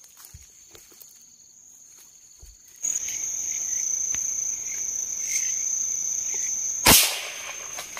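Crickets chirring in a steady high trill that becomes much louder about three seconds in, and one sharp gunshot about seven seconds in: the shot that brings down a jungle fowl roosting in the trees.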